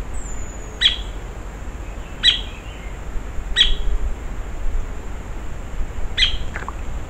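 A bird giving four short, sharp calls, spaced one to two and a half seconds apart, over a steady faint high-pitched tone.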